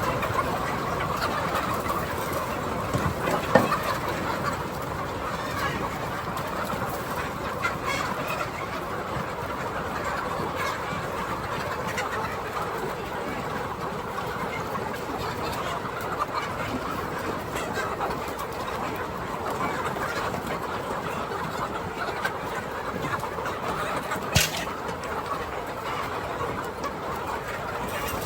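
A flock of chickens clucking steadily, with a sharp knock about three and a half seconds in and another near the end.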